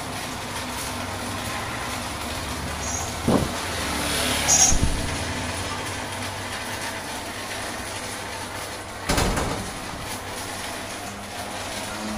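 A steady low mechanical hum runs throughout, broken by a few short sharp knocks: one about three seconds in, a brief high squeak with a louder bump about a second later, and a heavier knock about nine seconds in.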